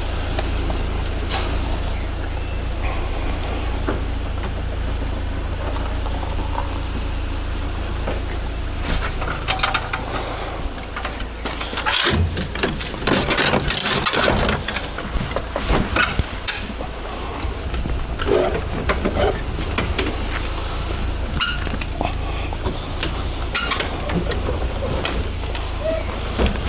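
Scrap metal being handled and loaded onto a truck: a run of clanks and knocks starting about nine seconds in and loudest a few seconds later, over a steady low rumble.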